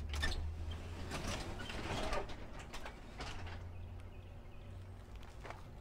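Overhead sectional garage door rolling up, its panels and rollers rattling and clunking in a string of knocks over the first three seconds or so, then quietening, over a steady low hum.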